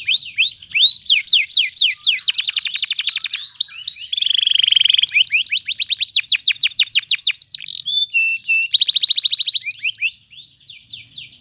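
Domestic canary singing a long, fast song: rapid trills of quick falling notes that switch to a new trill every second or so, including a buzzy roll. It is quieter near the end and then cuts off.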